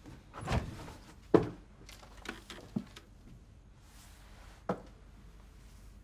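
A door and footsteps in a small room: a handful of separate knocks and thumps, the sharpest about a second and a half in.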